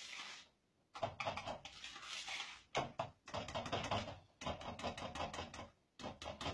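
A hand whisk stirring a thick ricotta mousse mixture in a bowl, making rapid clicking and scraping against the bowl. It comes in short runs with brief pauses.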